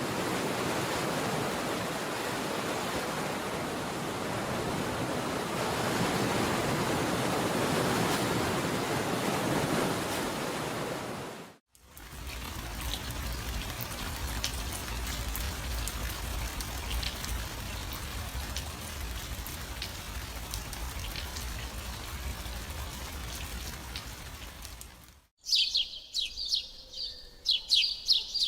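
Separate nature recordings one after another. First comes a broad rushing of surf-like waves for about eleven seconds. After a sudden cut there is a quieter steady rushing with a low rumble, and after another cut, near the end, rapid high-pitched bird chirping.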